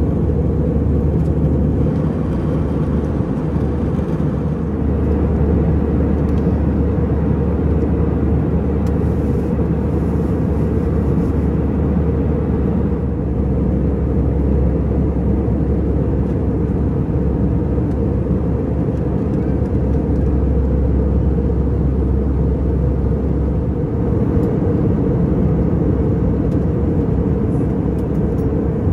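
Steady cabin noise of an Airbus A320-200 in flight: a constant low rumble of engine and airflow, with a low hum that drops away about 24 seconds in.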